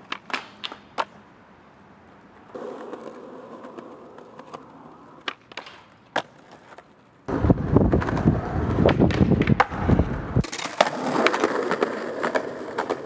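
Skateboard on concrete: sharp clacks of the tail popping and the board landing, and hard wheels rolling over rough pavement. The rolling is loudest for about three seconds in the middle, then after a sudden change turns into a lighter, steady roll.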